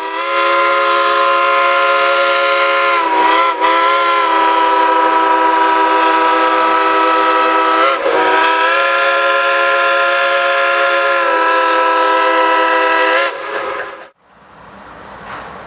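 Freight locomotive air horn sounding one long, loud chord, wavering briefly about three and eight seconds in and cutting off near the end, followed by a steady rushing noise.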